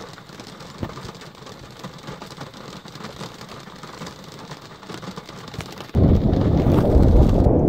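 Rain falling on window glass: a steady hiss peppered with many small drop ticks. About six seconds in it cuts abruptly to loud, low wind buffeting the microphone.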